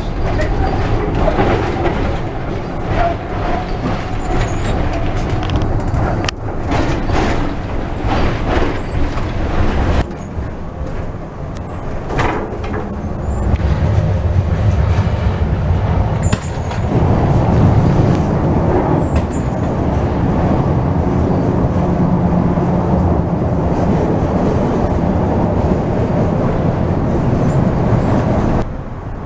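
Old ex-Vienna tram running, heard from inside the cab: a steady rumble of steel wheels on rails, with clacks and knocks as it crosses rail joints and points in the first third. A low hum grows stronger a little past halfway.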